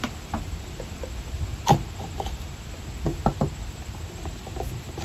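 Scattered clicks and knocks of parts and tools being handled while a Milwaukee M12 stick transfer pump is taken apart. The sharpest knock comes a little under two seconds in, with three quick ones about three seconds in.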